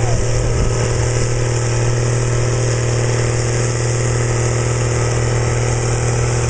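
Blue Ford tractor's engine running steadily under load while it pulls a weight-transfer sled, with a deep, unchanging drone.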